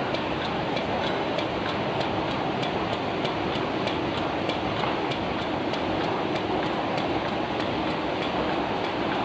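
Plastic courier bag making machine running: a steady mechanical hum and rush with an even, rapid clicking from its repeating cycle.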